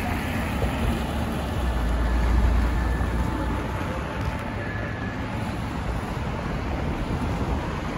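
City street traffic: cars and a van passing close on a multi-lane avenue, with a low rumble swelling as a vehicle goes by about two seconds in.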